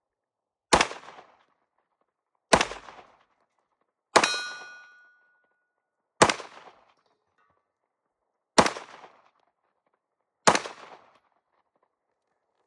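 Six single pistol shots from a Colt 1911, spaced about two seconds apart. The third shot is followed by a metallic ring lasting about a second.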